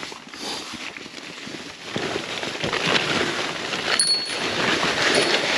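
Rustling and crinkling of nylon fabric and stuffed gear bags being handled and shifted, with a light metallic clink and short ring about four seconds in.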